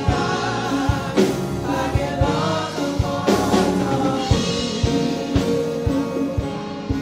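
Live gospel worship music: a band with singers holding sustained sung notes over a steady kick-drum beat.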